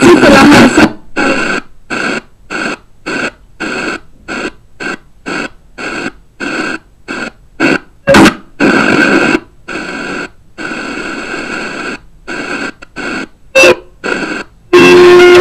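Sony XDR-F1HD FM tuner stepping channel by channel across the FM band during a DX bandscan. A station's audio cuts off about a second in, then comes a short burst of static hiss at each step, about two a second with muted gaps between them, and brief snatches of louder signals on a few frequencies. A strong station's audio comes in near the end.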